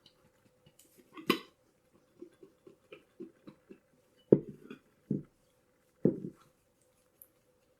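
Blueberries and flour being shaken inside a bowl covered with a second bowl: a sharp click, a run of soft rattling taps about four a second, then three heavier thumps of the bowls. A faint steady hum runs underneath.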